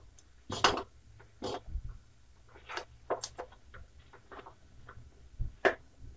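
Metal spatula scraping and knocking against a metal kadhai while stirring a thick, lumpy rice-flour dough, in irregular strokes.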